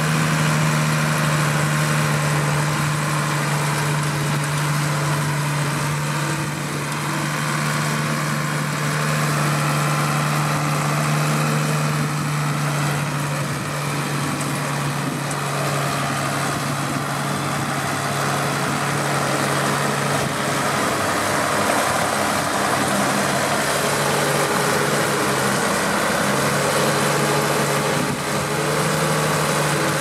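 A New Holland TM120 tractor's diesel engine running steadily as it pulls a Vicon RF 2235 round baler that is picking up and baling cut grass, the engine's steady hum mixed with the baler's mechanical clatter and rush.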